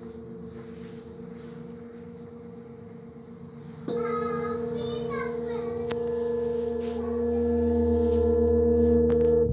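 Brass singing bowl ringing with a steady hum and overtones. About four seconds in, a bowl is struck and a louder, wavering ring swells, then cuts off suddenly at the end.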